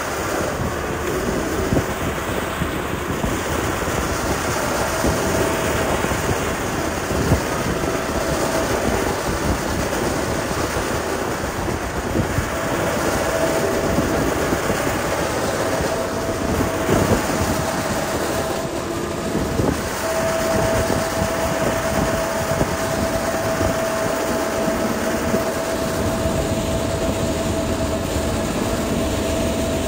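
Liugong motor grader's diesel engine running steadily as it works gravel, with scattered clanks and knocks and a steady whine that comes and goes.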